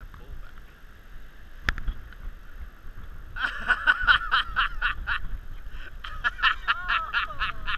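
Geese honking in fast runs of calls, two bursts of calling over a low wind rumble on the microphone, with one sharp knock about two seconds in.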